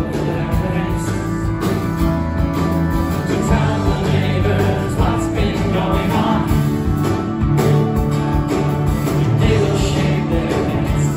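Live band playing a song through the PA: acoustic guitar, piano, bass guitar and drums, recorded from within the audience.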